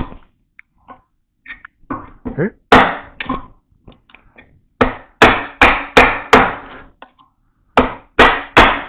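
Mallet blows on a mortise chisel chopping a mortise into wood: a few single strikes, then quick runs of blows about two or three a second, with softer knocks and scrapes of the chisel working the chips loose in between.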